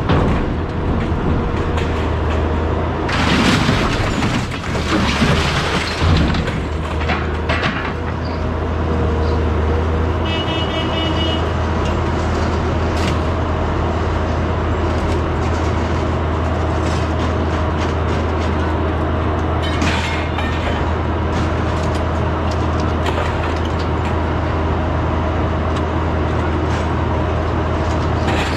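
Engine idling steadily with a low drone. A few knocks and clatters in the first six seconds.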